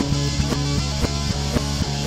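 Rock music with electric guitar over a fast, steady drum beat.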